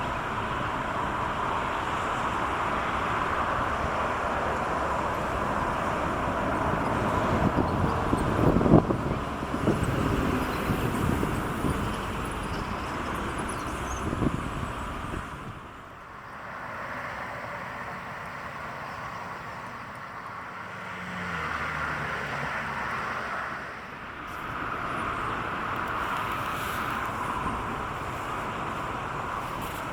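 Strong wind buffeting the microphone over a steady outdoor rumble, gusting hardest around nine seconds in and easing about halfway through.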